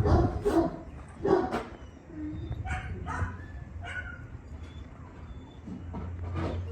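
Puppies barking: a few sharp barks in the first couple of seconds, then fainter, higher yelps and one more bark near the end.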